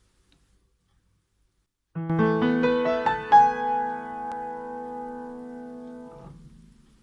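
Piano playing a quick rising run of about seven notes, the notes ringing on together and then released about three seconds later. It is a by-ear piano rendition of a JR East train-approach announcement chime.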